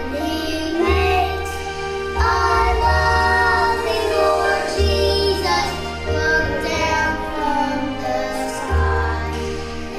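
Children singing a Christmas song together over a backing track with a steady bass line.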